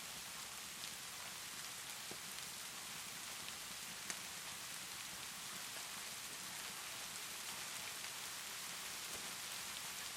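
Steady rainfall hissing evenly, with a few sharp crackles from a fireplace, the loudest about four seconds in.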